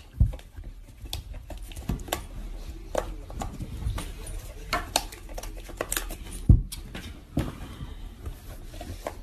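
Scattered light clicks and taps of a plastic charger plug knocking against a wall socket as a cat bats at the hand holding it. There are a couple of louder knocks, one just after the start and one about six and a half seconds in.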